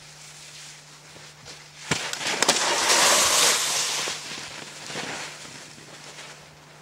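Skis of a walker-frame ski attachment hissing and scraping over crusty snow as the rider slides past close by, swelling for a couple of seconds midway and then fading. A sharp click comes just before it.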